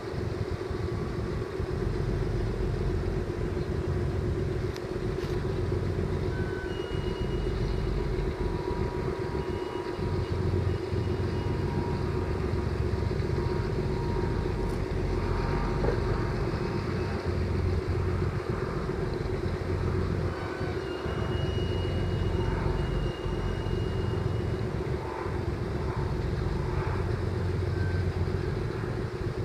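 Steady low rumble with a constant hum from a running engine, with wind gusting on the microphone underneath.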